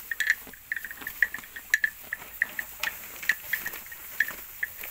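Cattle chewing and tearing freshly cut Ruzi grass: irregular crisp crunches, several a second.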